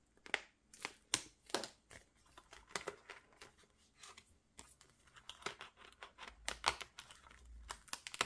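Clear plastic binder pocket crinkling and rustling as it is handled and turned in a ring binder, with paper cards shuffled alongside: a run of irregular crackles.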